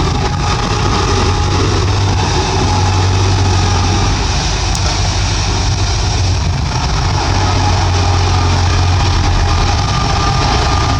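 Bulldozer's diesel engine running steadily, a loud deep drone with faint higher tones above it.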